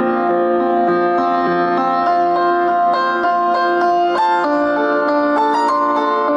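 Instrumental music with plucked-string and keyboard notes, played by a Samsung MM-E330D mini system through Vega 15AC-109 speakers during a test run after repair. It is steady in level and thin on deep bass.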